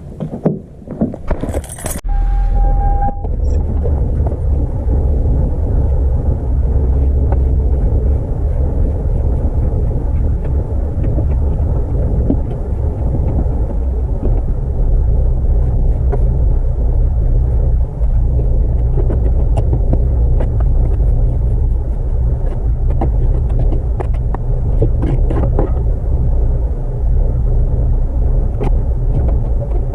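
Keys jangling, then a van's engine starting about two seconds in and idling steadily with a low rumble. It is a cold start in below-freezing weather, with the engine left running to warm up.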